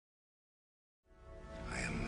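Complete silence for about a second, then background music fades in and grows steadily louder.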